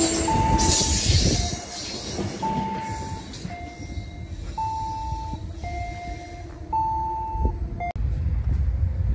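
Passenger train passing close by and rumbling away down the track, fading after the first second or so. Through it an electronic warning signal repeats two alternating notes, high then low, about one note a second. Near the end a fresh low rumble comes in.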